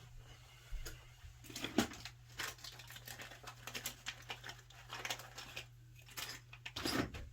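Small hard parts and tools of a snap-setting kit being handled on a work surface: scattered clicks, taps and rustles, with a bunch of louder clatter about a second and a half in and again near the end.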